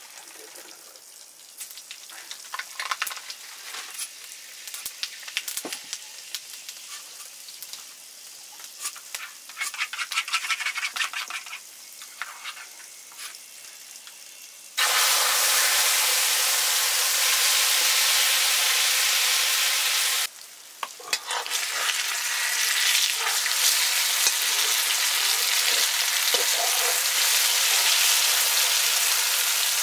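Food frying in hot oil in a pan, with scraping and clicks of stirring. About halfway through a loud, steady sizzle starts suddenly, breaks off for about a second, then goes on.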